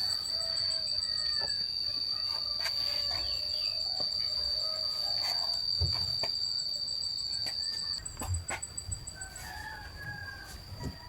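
A steady, high-pitched trill of crickets or other insects, with a second pulsing trill above it; the main trill drops away about eight seconds in. Chickens call over it, including a rooster crowing, and a few sharp knocks sound.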